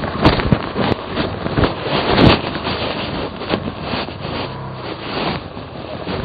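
Enduro motorcycle working slowly over a rocky trail: a rough, noisy rumble broken by repeated knocks and thuds from the bumps, with wind buffeting the microphone.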